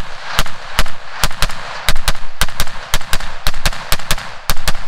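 Rapid semi-automatic fire from a .308 PSA AR-10 with a tanker-style muzzle brake: loud, sharp shots about three to four a second, each echoing into the next. The firing stops suddenly near the end as the rifle jams.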